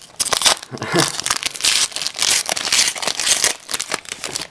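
Foil wrapper of a hockey card pack crinkling in the hands as it is opened, a dense run of crackling. A brief voice sound about a second in.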